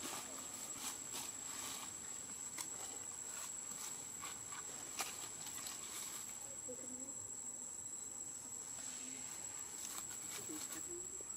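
Outdoor ambience dominated by a steady high-pitched insect drone, with scattered soft clicks and faint, indistinct voices in the background.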